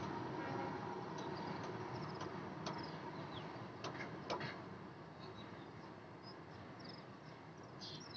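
Rumble of a freight train of empty BOBSN wagons fading as it moves away, with birds chirping now and then.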